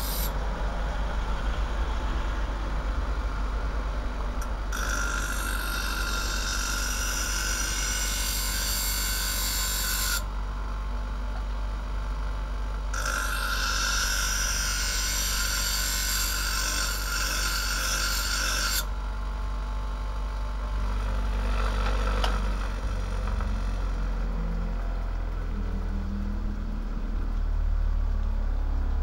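Einhell bench grinder running with a steady hum while the broken tip of an Opinel Outdoor knife's steel blade is ground back to a point on the wheel. There are two grinding passes, each a harsh hiss of steel on the stone lasting about five to six seconds, with a short pause between. After the second pass only the motor hum remains.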